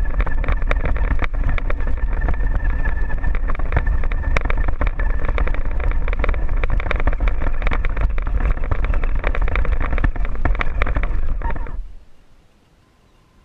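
Radio-controlled buggy driving over a gravel trail, heard from the camera mounted on it: steady drivetrain whine with constant rattling and clicking from stones under the wheels. It cuts off abruptly near the end as the buggy stops.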